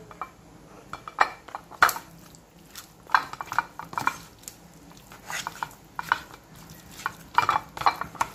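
A plastic spatula mixing raw chicken pieces coated in turmeric in a plastic colander: irregular clusters of knocks and scrapes as the spatula hits and drags against the container.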